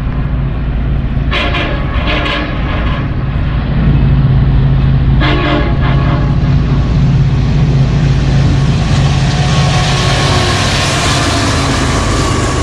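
Union Pacific diesel freight locomotive approaching at speed, sounding its air horn in short blasts twice in the first few seconds and once more about five seconds in, over a steady engine rumble. Near the end the rush of wheels on rail grows louder as the double-stack intermodal train arrives.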